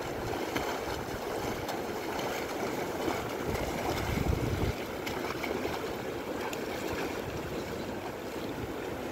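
Glacial meltwater of the Ganga (Bhagirathi) rushing out of the glacier snout: a steady rush of fast-flowing water, with a brief low rumble about four seconds in.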